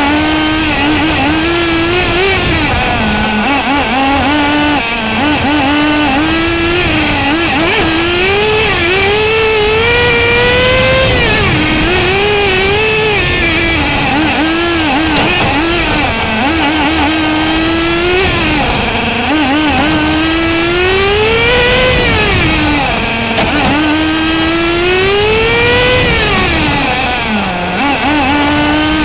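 Bycmo radio-controlled car's small engine heard from on board while lapping a track. It revs up and drops back again and again, its pitch climbing for a few seconds and then falling, over steady wind and tyre noise.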